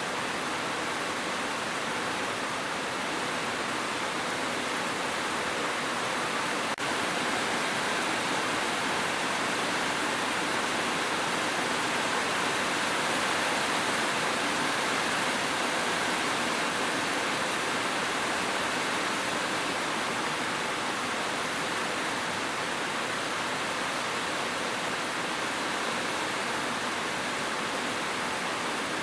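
Steady, even hiss of heavy rain, with no single drops standing out. A faint tick about seven seconds in.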